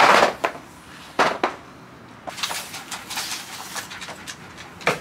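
Cardboard boxes of IKEA Runnen deck tiles being set down and slid across a plastic deck-tile floor: two short scraping thuds, the first at the start and the second about a second in. These are followed by scattered light clicks and taps on the tiles.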